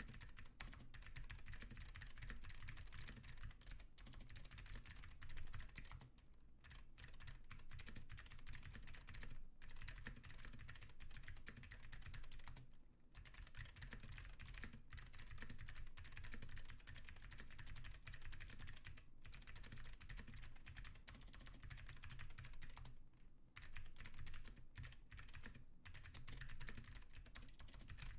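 Fast, continuous typing on a custom Alps keyboard with clicky Alps blue switches in a stainless steel plate and Leading Edge keycaps, a dense clatter of key clicks broken by a few short pauses.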